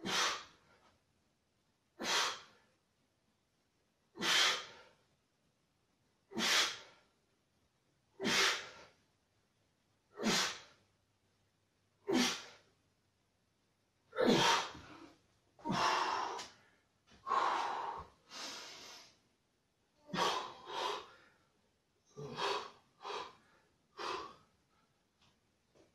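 A man's forceful exhalations, one sharp breath out about every two seconds with each repetition of a seated overhead dumbbell triceps extension. From about halfway through the breaths come closer together, longer and in pairs, as hard breathing at the end of the set.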